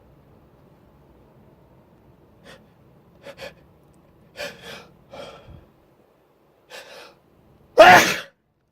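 A man's short catching breaths building up, then one loud, sudden uncovered sneeze near the end.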